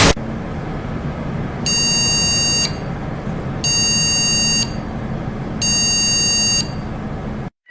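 Electronic error alarm: three shrill one-second beeps, evenly spaced about two seconds apart, over a steady low hum and hiss that cuts off suddenly near the end.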